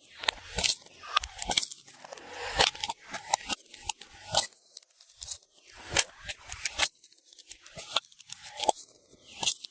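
Glossy slime being squished, stretched and folded by hand: irregular sticky pops and crackles, one or two a second, with some crisp snaps.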